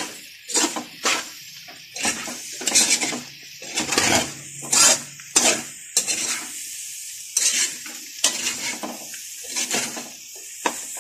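A metal spatula scraping and clanking against a metal wok in irregular strokes as bitter gourd and egg are stir-fried, over a light steady sizzle.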